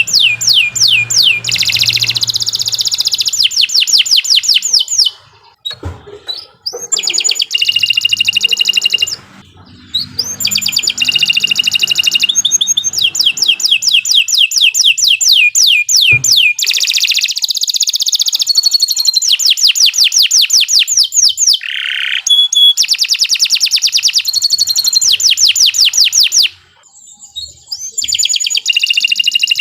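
Domestic canary singing long, fast trilled phrases. Each phrase is a rapid run of repeated rising notes, with short breaks about five, nine and twenty-seven seconds in.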